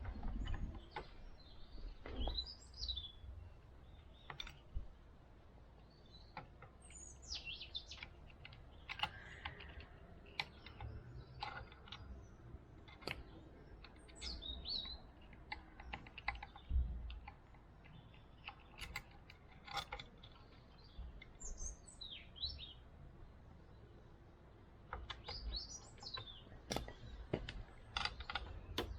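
Small birds chirping on and off, short twittering calls every few seconds, over scattered light clicks and knocks.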